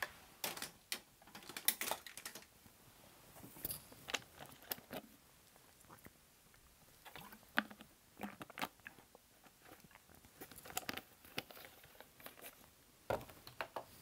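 Faint, scattered clicks and short rustles of things being handled close to the microphone, a few each second, with no steady sound.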